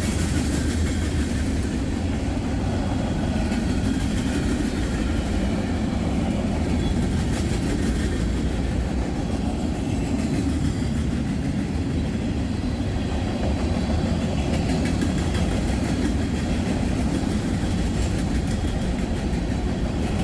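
Freight train tank cars rolling steadily past: a continuous low rumble of steel wheels on rail with a faint clickety-clack from the rail joints.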